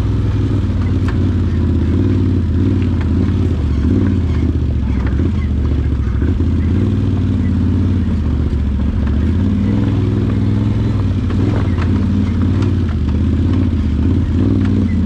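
Can-Am Outlander 850 ATV's V-twin engine running steadily on the trail, its pitch rising and falling a little with the throttle, with scattered light clicks and knocks over it.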